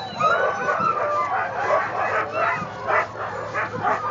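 A large pack of sled dogs barking, yipping and howling all at once, many overlapping calls with no single dog standing out: the excited clamour of harnessed teams waiting at a mass race start.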